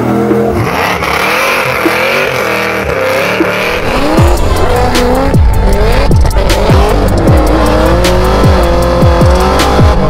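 Music with a wavering vocal melody. About four seconds in, a heavy bass with repeated falling slides and a steady drum beat come in.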